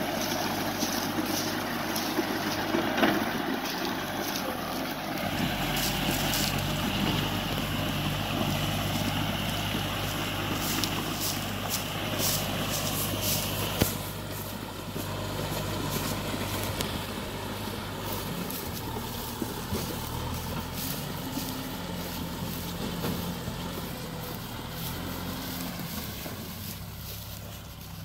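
Kubota M6040SU tractor's four-cylinder diesel engine running steadily under load as it hauls a trailer through deep mud. The engine grows fainter in the second half as the tractor draws away.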